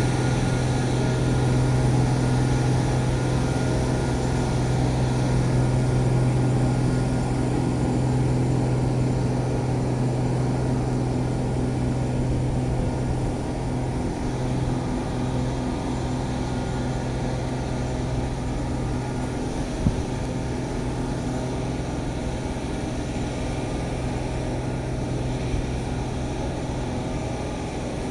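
A truck's engine running steadily nearby, a loud, unbroken low drone that slowly gets a little fainter, with a single short click about two-thirds of the way through.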